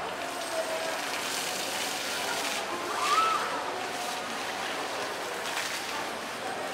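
Background murmur of distant zoo visitors' voices over a steady hiss, with one short rising-and-falling call about three seconds in.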